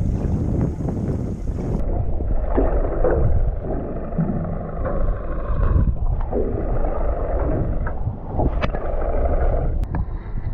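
Wind rumbling on the microphone and water noise on a small open boat. About two seconds in the sound turns duller, a muffled churning of water as picked up by an underwater camera, with a few light knocks.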